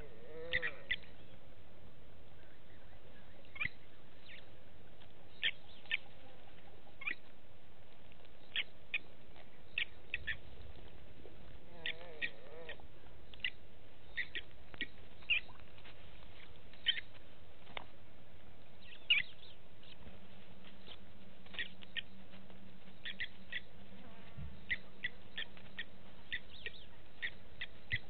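Blacksmith lapwings calling: short, sharp metallic clinks, singly and in quick pairs, scattered irregularly.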